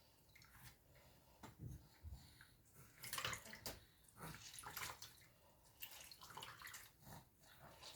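Faint, uneven splashing and dripping of lime water being poured into the mixture, in several short bursts.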